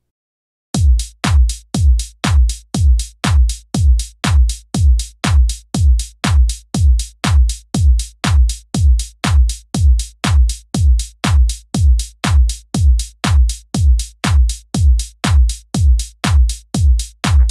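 Electronic dance music with a heavy kick drum beating steadily at a little over two beats a second, each kick dropping in pitch. It starts after a brief silence at the very beginning.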